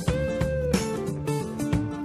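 Background instrumental music: guitar over a bass line with a steady beat.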